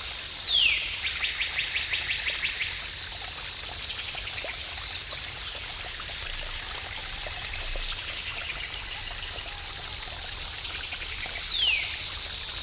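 A waterfall's water runs with a steady rush. A songbird gives a quick falling whistle followed by a fast, even trill, then another falling whistle near the end.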